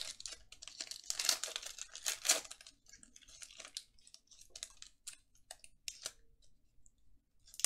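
Foil trading card pack being torn open and crinkled in the hands, crackling most densely in the first two and a half seconds, then in scattered crinkles, and going quiet near the end.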